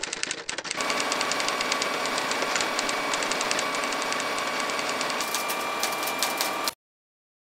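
Manual typewriter keys clacking, at first as separate strokes, then from about a second in as a dense, fast clatter with a steady whine under it. The sound cuts off abruptly near the end.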